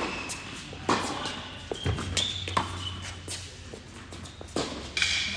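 Tennis ball struck by racquets and bouncing on an indoor hard court during a doubles rally: several sharp pops a second or so apart, ringing in the hall, with short high squeaks of shoes on the court.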